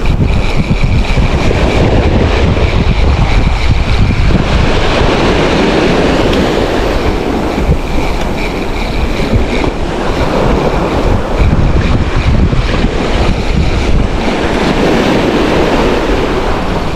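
Surf washing on the beach with strong wind buffeting the microphone, a loud, steady rush with a deep rumble.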